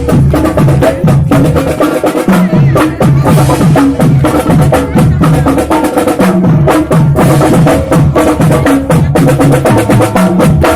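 Marching band playing: drums beat a fast, steady rhythm under a stepping low line and held pitched notes.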